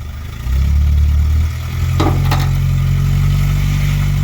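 Truck engine revving up and holding a steady high drone under load while it pulls another vehicle on a tow strap; the pitch steps up about a second and a half in, and two sharp knocks come about two seconds in.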